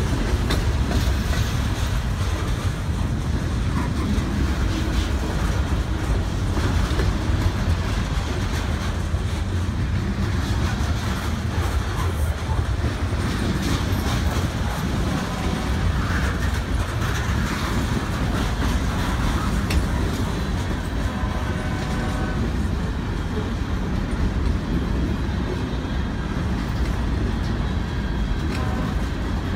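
Mixed freight train of covered hopper cars and lumber flatcars rolling past close by: a steady rumble of steel wheels on the rails with continual clickety-clack from wheels crossing rail joints.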